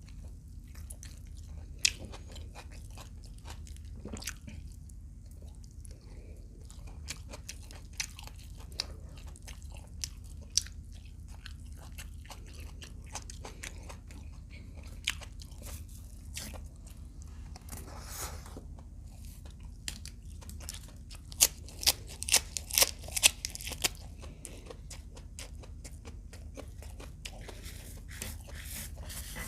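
Close-miked eating: sharp, irregular crunches and chewing of crunchy food, with a burst of loud crunches about two-thirds of the way through. A steady low hum runs underneath.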